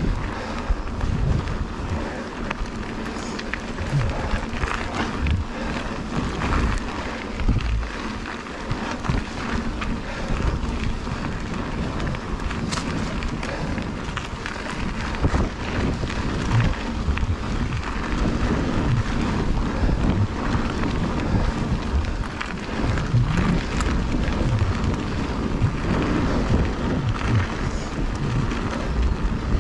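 Wind buffeting the camera microphone while a Trek Fuel EX 8 full-suspension mountain bike rolls along dirt singletrack, with tyre noise on the dirt and frequent rattles and knocks from the bike over bumps.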